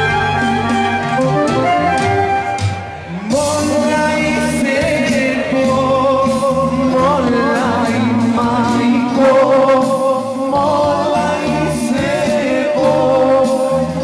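Live folk band playing a Macedonian dance song: a wind-instrument melody over drum kit and bass, then a male singer comes in about three seconds in and carries the tune with a wavering, vibrato-laden voice.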